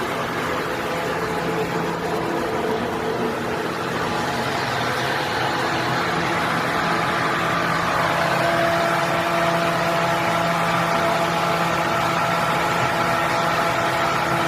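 Portable electric blower fan running steadily: a constant motor hum with blade tones over rushing air, the tones shifting slightly and the sound growing a little louder about halfway through.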